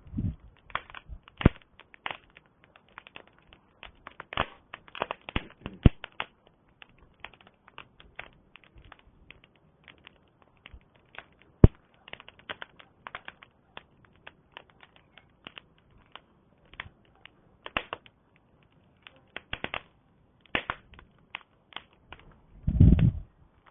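Wood campfire crackling and popping in irregular sharp snaps, with one loud pop about halfway through. A short low rumble comes near the end.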